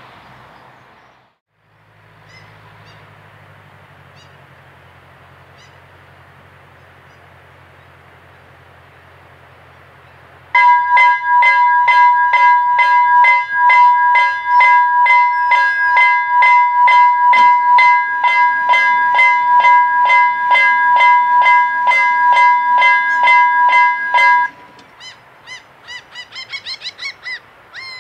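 Railroad crossing bell ringing rapidly, about three strokes a second, as the crossing warns of an approaching train. It stops abruptly once the barrier arms are down. A faint low hum comes before it, and a bird calls repeatedly after it.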